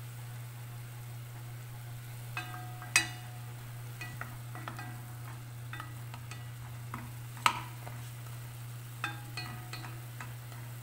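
Wooden spatula stirring pork pieces in simmering water in an enamelled pot, knocking against the pot with short ringing clinks that start about two seconds in. The two loudest knocks come about three and seven and a half seconds in. A steady low hum runs underneath.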